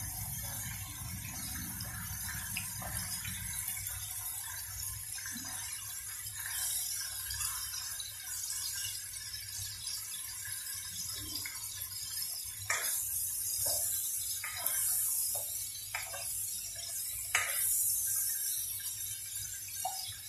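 Shrimp sizzling in hot oil in a nonstick frying pan, a steady hiss, while a plastic slotted spoon stirs and turns them. Several sharp taps and scrapes of the spoon against the pan come in the second half.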